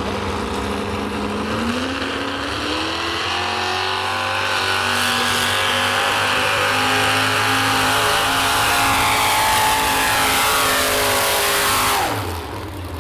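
Pulling tractor's engine revving up as it launches with the weighted sled, then running at high revs under full load for about ten seconds. Its pitch drops sharply near the end as the throttle comes off at the end of the pull.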